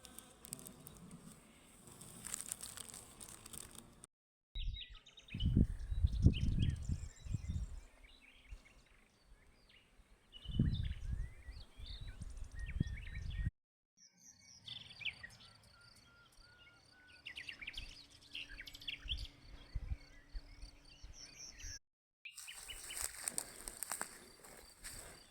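Small birds chirping and calling in quick, short notes across several outdoor clips, broken by two brief silent cuts. In the first half, loud low rumbling bursts cover the birdsong for a few seconds at a time.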